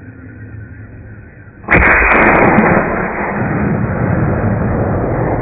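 A .270 Winchester rifle shot about a second and a half in, sudden and loud, followed by a long rolling rumble of echo that fades only slowly.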